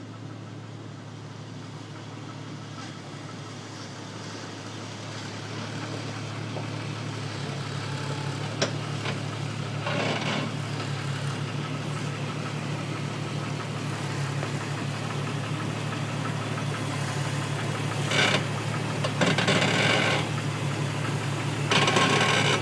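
Engine of a lifted 4x4 rock crawler running at low crawling speed, a steady low hum that grows louder as the vehicle climbs over the ledge and passes directly overhead. Several short louder bursts of crunching noise come in from about ten seconds in and near the end as the tyres and underside work over the rock.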